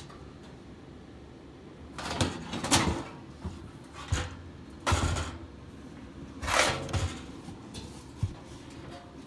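Furnace blower assembly's sheet-metal housing being slid out of its compartment and set down: a string of short metal scrapes and knocks starting about two seconds in, with a sharp click near the end.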